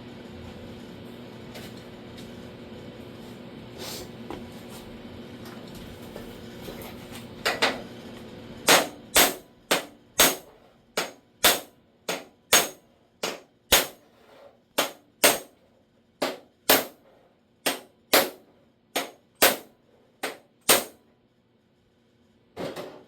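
Hammer striking a flat chisel held against a steel door-skin repair panel, tapping the creeping panel edge back into place. It is about twenty sharp metallic taps, roughly two a second, starting about seven seconds in. Before the tapping starts there is a steady low hum.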